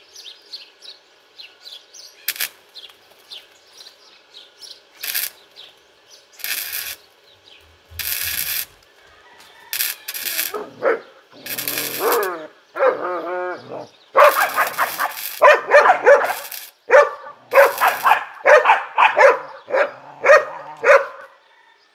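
Titanium Easy-Flux 125 flux-core wire welder striking its arc in short crackling bursts, each under a second and several seconds apart at first, then coming closer together. From about halfway through, a dog barks rapidly and repeatedly, louder than the welding.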